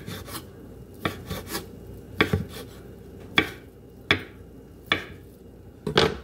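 Chef's knife slicing cooked chicken breast on a bamboo cutting board: the blade knocks on the board about ten times at an uneven pace, roughly one knock every half second to second.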